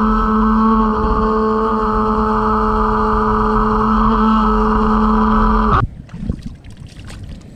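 Electric RC speedboat's motor whining at a steady pitch, with water hissing and splashing against the hull, as heard from a camera mounted on the boat. The boat is running below full speed, which the owner puts down to battery and speed-controller problems. About six seconds in, the whine cuts off suddenly, leaving only faint rustling and knocks.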